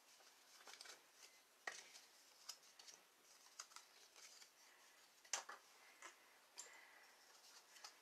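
Faint crackles, taps and rubs of a scored white cardstock strip being folded and creased by hand along its score lines, with the sharpest clicks near two seconds and five seconds in.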